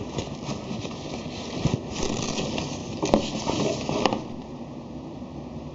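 Toy packaging being handled as the vests are taken out, with crinkling and rustling and two sharp clicks about three and four seconds in.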